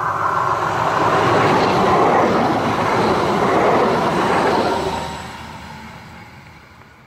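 Stadler Tango tram passing close by: the rolling noise of its wheels on the rails, loudest as it goes past, then fading away over the last couple of seconds.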